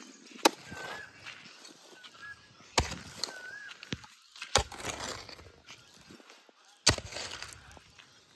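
Hoe blade striking hard, dry, stony soil four times, roughly two seconds apart, each blow followed by loose clods crumbling, while a pit is dug. Short wavering animal calls sound faintly between the strikes.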